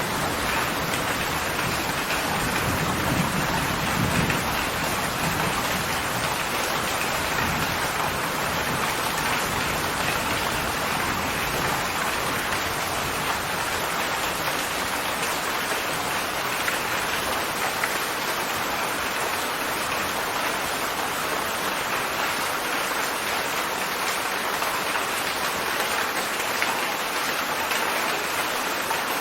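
Heavy summer rain falling steadily in a dense, even downpour, with a low rumble swelling briefly a few seconds in.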